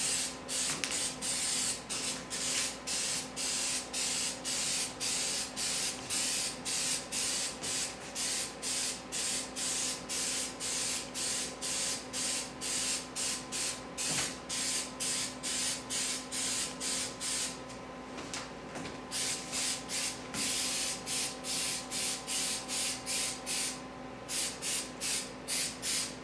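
Aerosol can of 3M rubberized undercoating spraying a gas tank in short hissing bursts, about two a second, with a couple of brief pauses.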